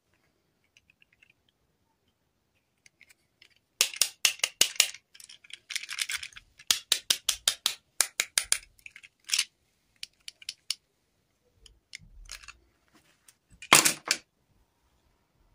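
Hands handling plastic fashion dolls and their fabric dresses: after a few quiet seconds, a quick run of small plastic clicks and cloth rustles, then scattered clicks and one louder rustle near the end.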